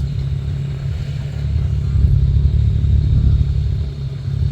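ATV engine running, a steady low rumble.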